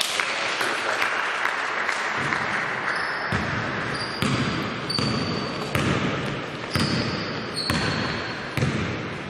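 Basketball being dribbled on a hall court, the ball hitting the floor about once a second, with short high squeaks of sneakers on the floor over a steady echoing hall noise.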